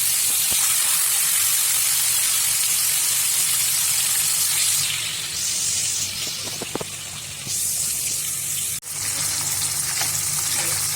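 Marinated rohu fish pieces sizzling in hot oil, a steady frying hiss. It eases off for a couple of seconds midway, breaks off for an instant a little before the end, then comes back.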